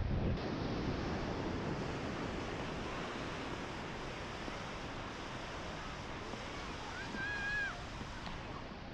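Sea waves washing onto a sandy beach, a steady surf wash loudest near the start, with wind on the microphone. About seven seconds in comes one short high-pitched call, rising then falling.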